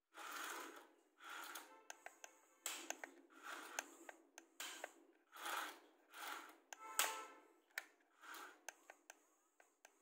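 Toy remote-control excavator's small electric gear motors whirring in repeated short bursts as the arm and bucket move, with many sharp plastic clicks between them.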